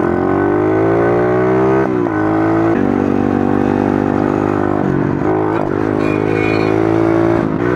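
Small pit bike engine running under throttle while riding. Its pitch climbs, then drops suddenly a few times and climbs again.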